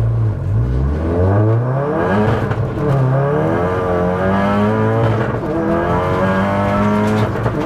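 Stage 3 big-turbo MK7 VW Golf R's turbocharged 2.0-litre four-cylinder accelerating hard from a standing start with traction control off, heard from inside the cabin. The engine note climbs and drops back at each upshift, several times over.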